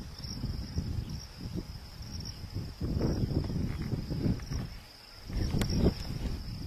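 Steady high-pitched insect trill over uneven bursts of low rumbling noise, with one sharp click near the end.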